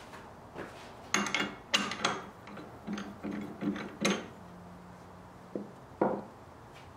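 Metal clicks and rattles of a key turning in a Nova four-jaw scroll chuck, loosening the jaws to release a turned wooden bowl, then a single knock about six seconds in as the wooden bowl is set down on the lathe bed.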